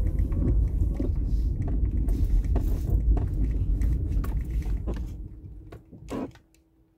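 Low rumble of a car heard from inside the cabin, with scattered clicks and knocks. It fades out about five to six seconds in, with one last knock just before it goes quiet.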